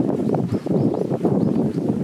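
Small birds giving short chirps several times over a dense, continuous rustling and knocking noise.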